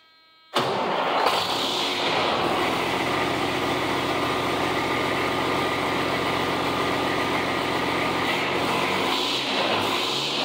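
Straight-piped 12.7-litre Detroit Diesel Series 60 inline-six in a 1996 Freightliner starting from cold: it fires abruptly about half a second in and settles into a steady idle.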